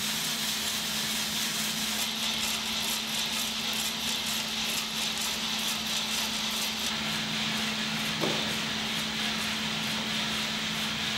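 Giesen drum coffee roaster running, with a steady hum and hiss from its drum drive and air system. Green coffee beans tumble in the rotating drum early in the roast. There is one short knock about eight seconds in.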